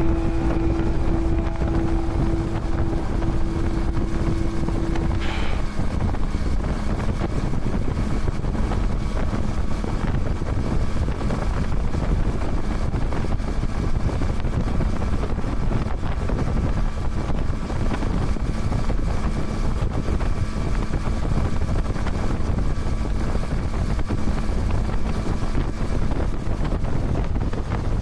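Yamaha MT-09's three-cylinder engine running at a steady cruise, mixed with heavy wind noise on the microphone.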